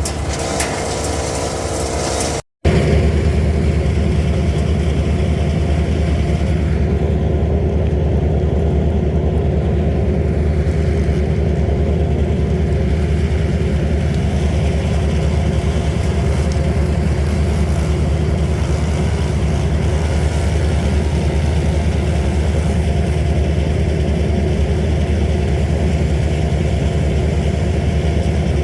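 A machine engine running steadily at a constant speed, a loud low drone with no change in pitch. It starts after a sharp cut about two and a half seconds in; before the cut is a different, hissier mechanical sound.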